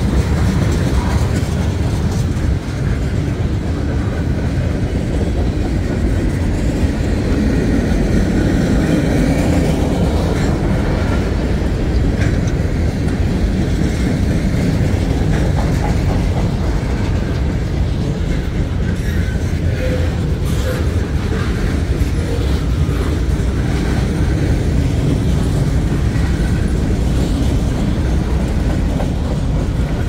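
Freight train cars rolling steadily past at close range: a continuous rumble of steel wheels on the rails.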